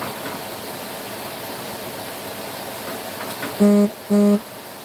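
Two short electronic beeps, a quarter second each, close together about three and a half seconds in, over a steady hiss.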